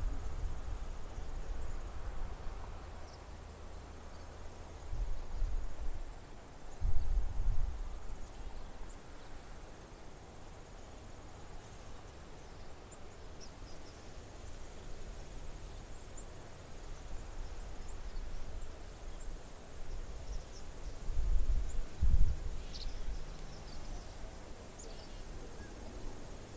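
Marsh ambience: a steady high insect trill, with scattered faint chirps from the swallows flocking over the water. Wind gusts buffet the microphone about 5 and 7 seconds in, and again around 21 to 22 seconds.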